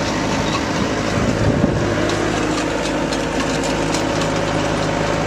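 A side-by-side UTV engine idling steadily.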